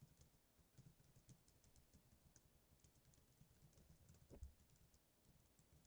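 Faint typing on a computer keyboard: an irregular run of quiet key clicks.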